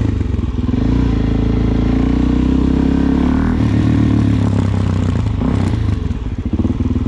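Suzuki DR-Z400SM's single-cylinder four-stroke engine running through an aftermarket Delkevic exhaust on the move. The revs rise and hold, then dip briefly near the end before picking up again.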